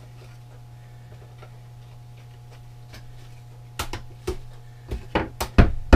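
A steady low hum, then from about four seconds in a run of sharp knocks and clacks, louder near the end, as the wooden and plastic pieces of a flat-pack chair frame are handled and fitted together.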